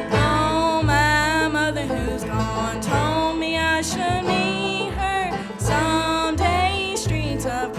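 Bluegrass band playing live: banjo and guitar driving a steady rhythm under a melody line that bends and slides.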